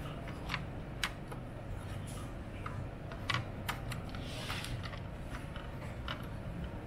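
About a dozen irregular light clicks and taps of hard objects being handled, spaced unevenly, over a steady low hum.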